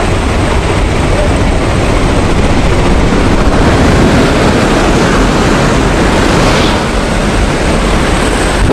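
Loud, steady rush of wind and the jump plane's engine through the open door at altitude, the airstream buffeting the microphone.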